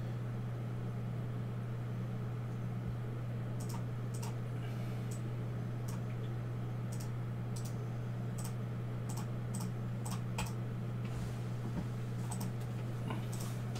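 Scattered clicks from a computer keyboard and mouse, irregular and spaced out, over a steady low hum.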